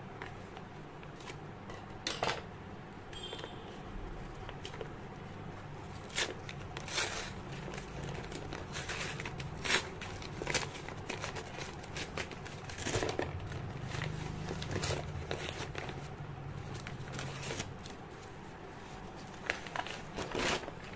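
Brown paper mailer bag being cut open with scissors and handled: irregular crinkling and rustling of stiff paper with sharp snips and crackles, over a low steady hum.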